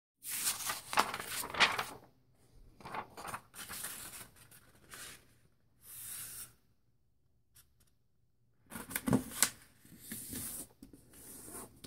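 A sheet of white paper rustling and crinkling as hands fold it in half and press the crease flat against a table. The sound comes in several bursts with a quiet gap of about two seconds in the middle, and the loudest moment is a pair of sharp crackles about nine seconds in.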